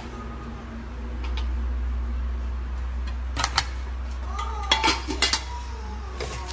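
Metal tongs clinking against stainless steel noodle pots and a serving bowl while noodles are dished up. There is a light clink about a second in, two more around three and a half seconds, and a quick cluster near five seconds, all over a steady low hum.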